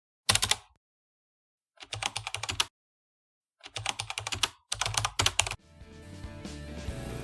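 Computer keyboard typing in four short bursts of rapid clicks, separated by dead silence. Music fades in near the end.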